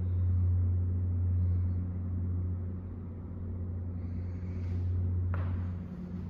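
A steady low hum runs throughout, with a brief rustle or scuff about five seconds in.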